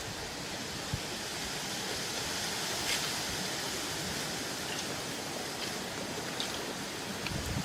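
Steady even hiss with a few faint, short ticks.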